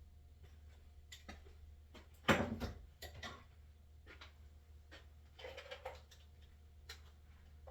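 Scattered clicks and knocks of things being handled, with one louder clunk about two seconds in and a short rattle of knocks a few seconds later, over a steady low hum.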